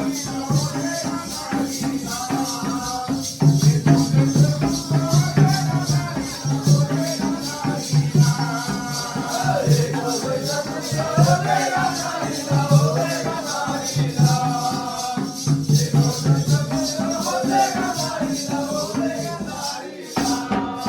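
Jakhadi folk song: a singer's voice carrying a wavering melody over a low, pulsing drum beat and a fast, even jingling rhythm.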